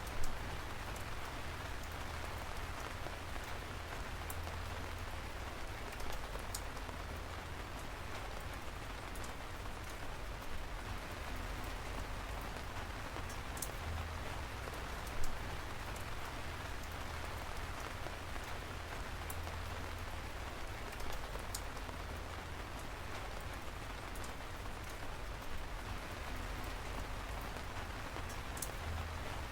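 Steady rain falling, an even hiss, with a few sharp ticks of single drops striking close by; the loudest come just after the start and about fifteen seconds in.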